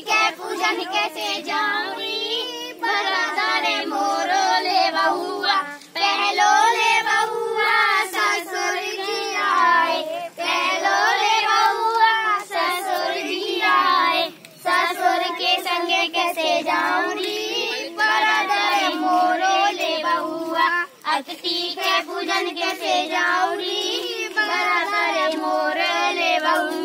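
A group of children singing a traditional folk song together in unison, unaccompanied, in phrases separated by short breath pauses.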